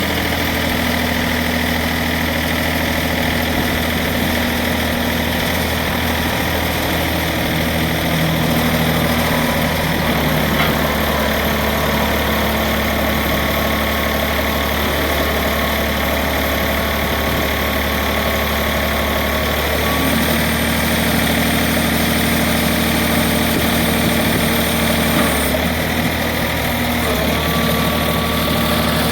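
Eagle tire baler's hydraulic power unit running steadily, a loud machine hum with the pitch and load of its low tones shifting a few times as the press works.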